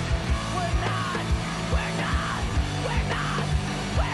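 Background music with a steady, fast drumbeat.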